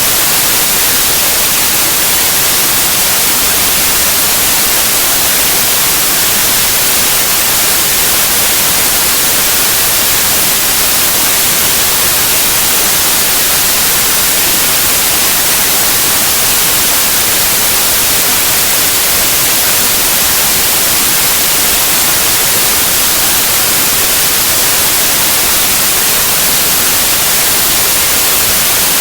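Steady white noise: an even, unchanging hiss, loudest in the high range.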